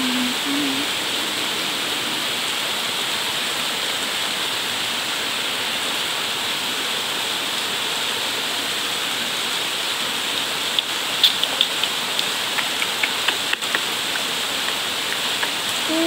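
Steady rain falling on broad tree leaves, an even, constant hiss. Past the middle comes a run of sharp, close taps.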